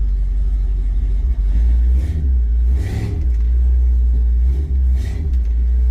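Truck engine and drivetrain rumbling deeply under hard acceleration, swelling about two to three seconds in and again near five seconds. It is a take-off made to test whether the rear axle still pops, now that heavier U-bolts hold it.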